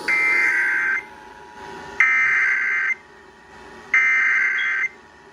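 Emergency Alert System SAME header: three buzzy digital data bursts, each about a second long with about a second's pause between them. They mark the start of a coded flash flood warning alert.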